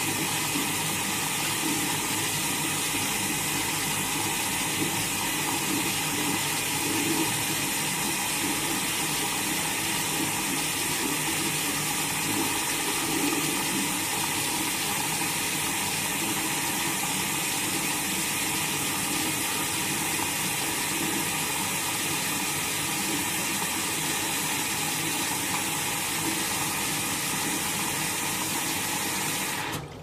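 Logik L612WM13 washing machine taking in water: a steady rush of water flowing into the drum, which cuts off suddenly near the end as the fill stops.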